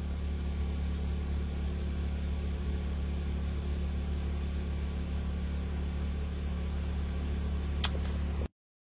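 Steady low hum over a constant hiss, with one short click near the end before the sound cuts out completely.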